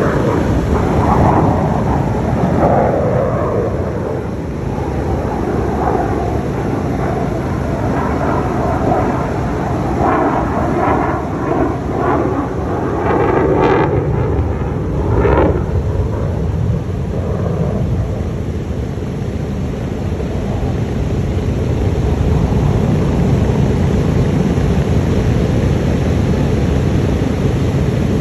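Propeller aircraft engines running with a steady low rumble: a vintage DC-3-type transport's twin radial engines turning its propellers as it taxis. In the first few seconds an aircraft passes overhead, its pitch dropping.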